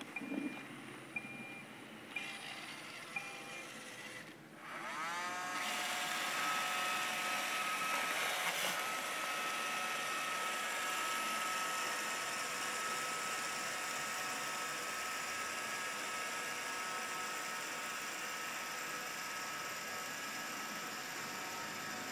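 Roomba robot vacuum starting up: a few short electronic beeps about a second apart, then its motors spin up with a rising whine about four and a half seconds in and settle into a steady whirr of vacuum fan and brushes.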